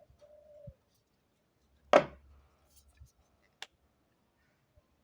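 Perfume bottle and packaging being handled: a brief faint squeak at first, then one sharp knock about two seconds in and a lighter click a moment later.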